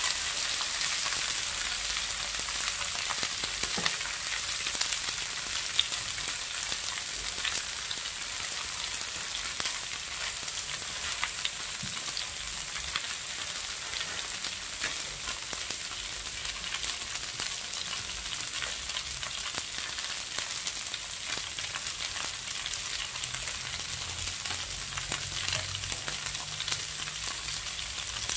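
Eggplant, shallots and lemon basil sizzling in hot oil in a nonstick wok: a steady crackling hiss. A few sharper clicks in the first seconds as metal tongs stir the pan.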